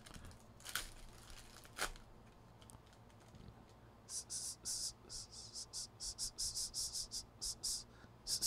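Gold foil pouch from a Panini Encased hobby box crinkling and crackling as fingers work open its top edge: a couple of single crackles, then from about four seconds in a rapid run of short crackles, about four or five a second.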